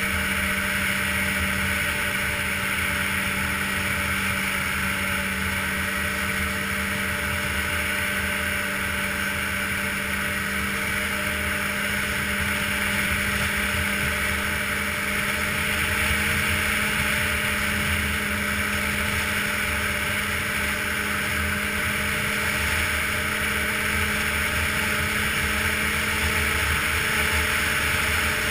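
Ski-Doo touring snowmobile engine running at a steady cruising speed, heard from on board: a constant drone whose pitch holds steady throughout, with a steady rushing hiss over it.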